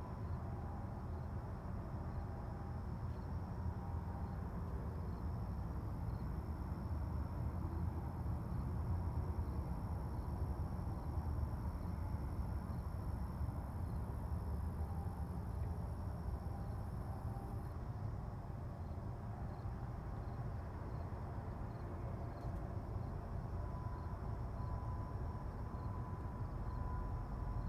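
Outdoor ambience: a steady high-pitched insect trill over a continuous low rumble.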